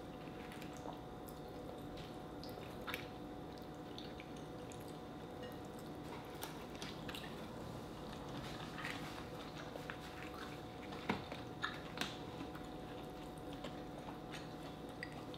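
Seafood-boil eating: wet squishing of fingers in a bowl of sauce, shell and meat being picked apart, and chewing, with small scattered clicks, a few sharper ones about eleven and twelve seconds in, over a faint steady hum.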